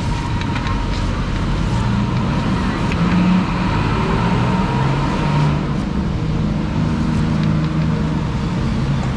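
Steady road traffic, with car engines running close by.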